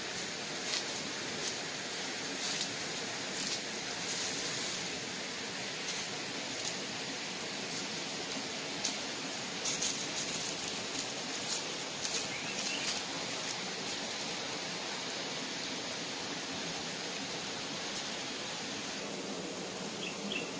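Steady rushing of a shallow forest stream, with scattered short clicks and rustles of bare feet and handling on rocks and dry leaves.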